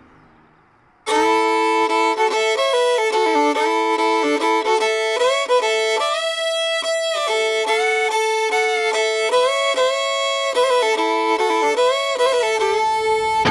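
Solo fiddle playing a slow tune in long held notes, often two strings at once, entering abruptly about a second in after a faint, fading lead-in.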